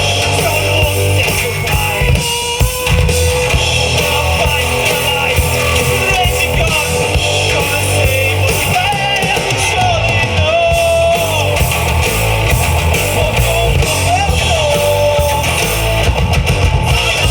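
Live rock band playing a song: electric guitars, bass guitar and drum kit, with a melody line sliding between notes over the steady band sound.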